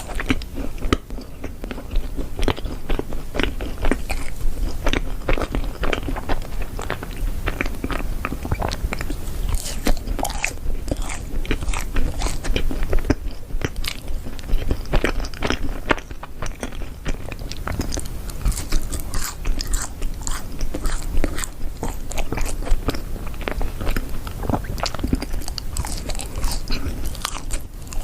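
Close-miked biting and chewing of yakgwa, Korean fried honey cookies, with many small crunchy clicks coming irregularly and without pause.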